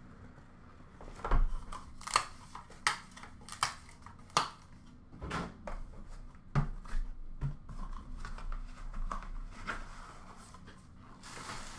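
A cardboard trading-card hobby box being opened by hand: a quick run of sharp clicks and snaps, then softer tapping and sliding of cardboard as the lid comes off and the inner box is lifted out, with a rustle near the end.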